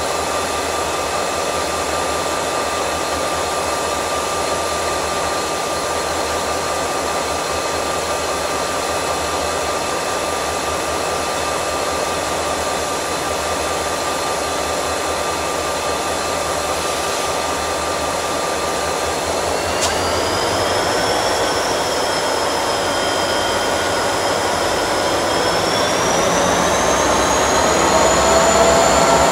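Diesel-electric freight locomotives running steadily with a constant whine. About twenty seconds in a higher whine starts and climbs in pitch, and the sound grows louder toward the end.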